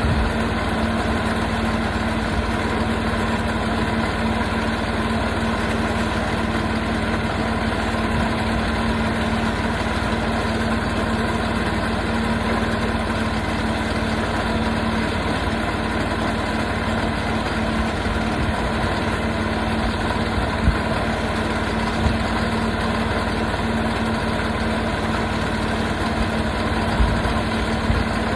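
Portable sawmill's engine running steadily at an even pitch, with a few brief knocks in the second half.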